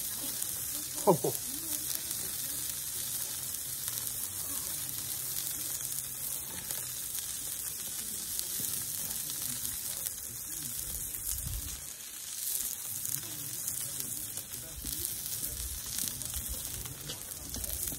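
New York strip steak searing on a hot grill grate, giving a steady sizzle.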